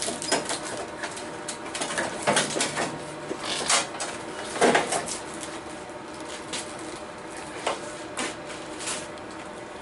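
Irregular knocks, clicks and light clanks of metal parts being handled as a small engine and its pulley are worked onto a mower deck, the loudest knock a little before halfway.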